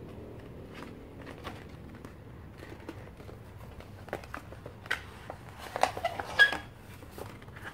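Rolled glossy poster being handled and pulled at by hands, the coated paper and its wrap rustling and crinkling. It is faint at first, with scattered short crackles that grow louder in the second half.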